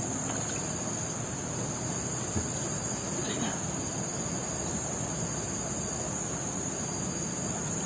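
A steady, high-pitched chorus of insects chirring without a break, with a faint click about two seconds in.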